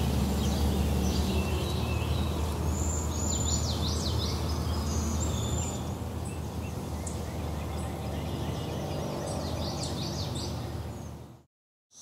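Songbirds chirping and singing, short quick calls, over a low steady hum; all of it fades to silence near the end.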